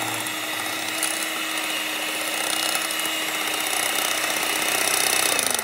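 Electric hand mixer running steadily, its twin beaters whirring through instant coffee, sugar and hot water as they whip it to a thick, creamy foam in a ceramic bowl. Near the end the motor's hum drops in pitch as it is switched off and slows.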